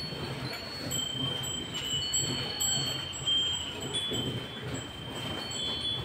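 A cow being milked by hand into a steel pail: alternating streams of milk squirt into the frothy milk. Over them, high steady ringing tones come and go.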